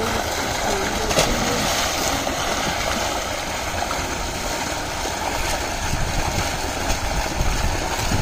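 Tubewell outlet pipe discharging a heavy jet of water into a concrete tank, a steady rushing gush over churning water. About a second in, a sharp splash as a man jumps into the tank.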